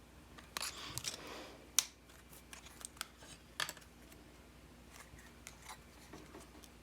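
Small clicks and scraping from a plastic pry pick working at a glued-down internal board of an iPod Classic: a brief scrape about half a second in, sharp clicks near 2 and 3.5 seconds, then faint scattered ticks.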